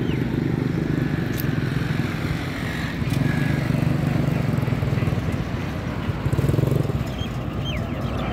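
Small engine of a mini tractor running as it drives up, a steady low rumble that grows louder as it nears.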